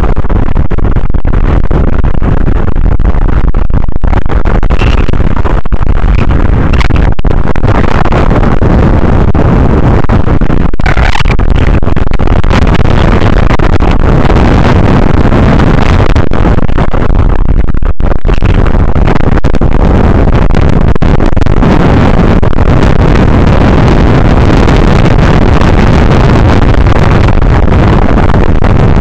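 Strong wind buffeting the microphone over rough water, a loud, steady rush that hardly lets up.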